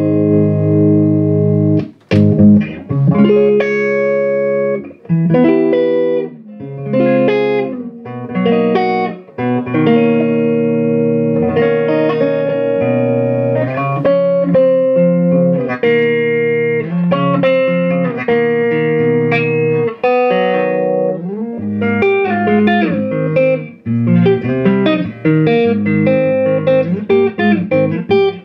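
Korina Gibson electric guitar played through a 1964 Marshall JTM45 Bluesbreaker valve combo: a run of ringing chords and single-note lines, with a short break about two seconds in and quicker picked notes near the end.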